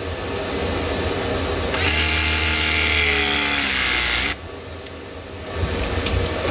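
Battery-powered press tool crimping a copper press fitting on a refrigerant line. Its motor runs and grows louder about two seconds in, its pitch sinking as it presses, then cuts off abruptly just past four seconds. A quieter mechanical sound follows and picks up again near the end.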